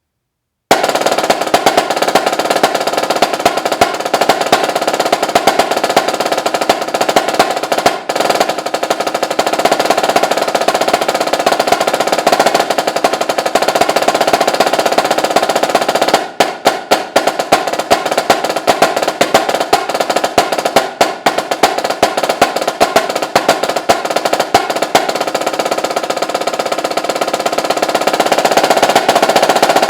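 Snare drum played solo in fast rolls and rapid strokes, starting under a second in. About halfway through comes a passage of separate sharp strokes with short gaps between them. Near the end it builds into a louder sustained roll.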